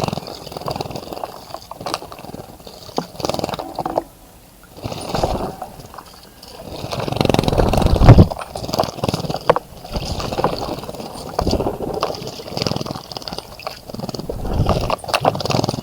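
Birds splashing in a bird bath, with water splashing and sloshing in irregular bursts, loudest around eight seconds in.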